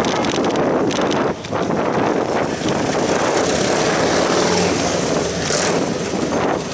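Steady rush of wind and road noise picked up by a microphone moving along with a bicycle, with a brief dip about a second and a half in.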